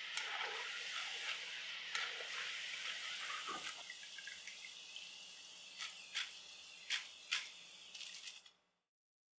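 Battered potato wedges sizzling as they deep-fry in hot oil, the sizzle slowly fading, with a few sharp clicks in the second half.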